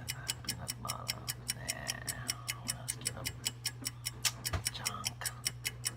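Fast, even clock-like ticking, about five ticks a second, over a steady low hum.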